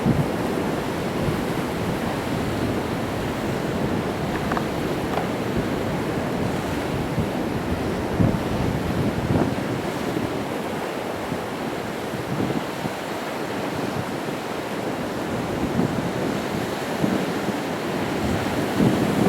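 Sea waves breaking and washing against rocks in a steady, surging wash, with wind buffeting the microphone.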